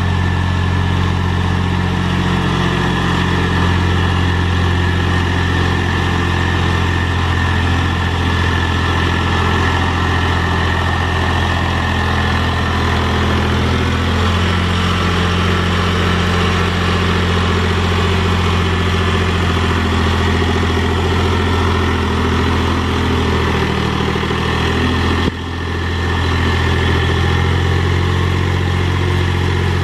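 Mahindra 3525 tractor's diesel engine running steadily as it pulls a box blade through dirt, its note shifting a little as the load changes. The sound breaks off abruptly for a moment about 25 seconds in, then carries on.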